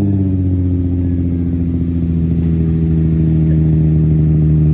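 BMW E36 engine running steadily through a newly fitted exhaust with no silencer, a loud, low, even drone whose pitch eases down slightly in the first second.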